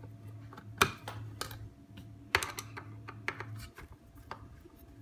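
Scattered light clicks and taps of a screwdriver and fingers on a finned aluminium charge-controller case while its screws are undone, the loudest about a second in, over a low steady hum.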